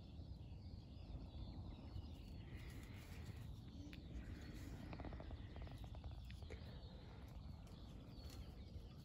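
Faint birdsong, thin wavering chirps from more than one bird, over a low steady rumble, with a few light clicks about five seconds in.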